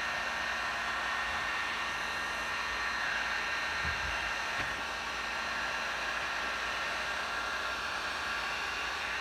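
Handheld electric heat gun blowing steadily, a constant airy rush, as it is swept over wet epoxy resin to move the colours.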